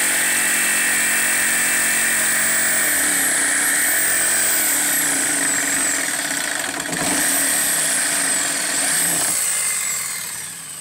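Ridgid corded jigsaw running and cutting through a thin wooden board, its motor pitch sagging and recovering a few times as the blade takes load. The saw stops near the end.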